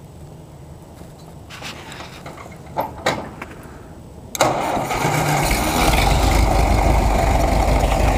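A few knocks and thumps, then about four seconds in the Minneapolis-Moline ZB tractor's four-cylinder engine starts abruptly and settles into steady running.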